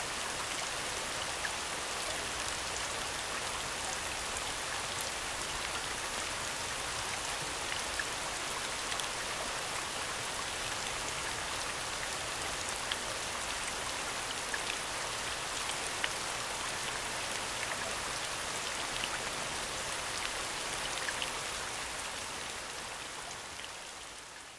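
Steady rain soundscape, an even hiss of falling rain with scattered individual drop ticks, fading out over the last few seconds.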